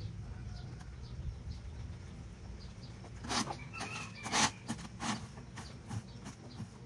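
Faint bird calls over a steady low rumble, with a cluster of short, sharp noisy sounds between about three and five seconds in, the loudest near four and a half seconds.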